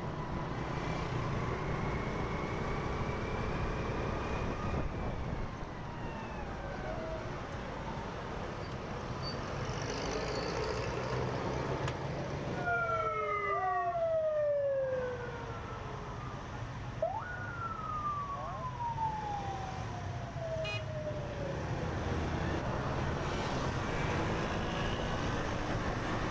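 Riding a motorbike through city traffic: steady engine and road rumble. About halfway through there are long whines falling in pitch, and a single tone jumps up and slides slowly down a few seconds later.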